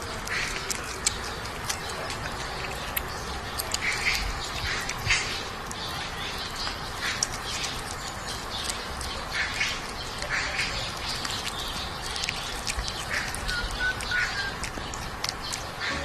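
Short animal calls, squawk-like and scattered, with small clicks over a steady background hiss.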